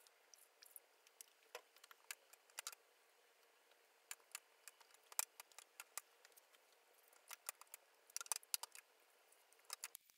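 Faint, irregular small clicks and taps of wet cyanotype prints being handled in a plastic developing tray, with a little cluster of them near the end, over a faint steady hum.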